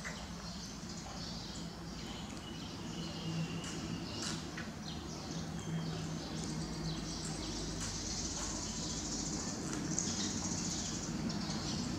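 Outdoor background: faint high chirping with a few short clicks over a steady low hum.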